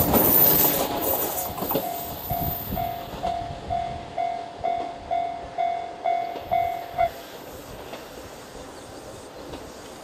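A JR 103 series two-car electric train passing close by, its running noise loudest at first and fading as it moves away. A level-crossing warning bell dings steadily about twice a second and stops about 7 seconds in.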